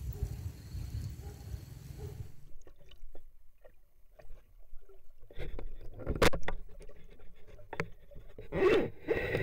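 Scattered knocks, clicks and scrapes around a small fishing boat, the sharpest knock about six seconds in, after a low rumble in the first two seconds.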